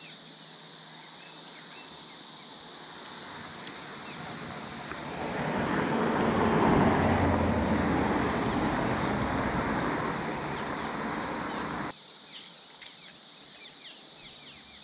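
A vehicle crossing the bridge, its road and engine noise swelling from about five seconds in, easing off, then cutting out abruptly a few seconds later. Underneath runs the steady high drone of a periodical cicada chorus.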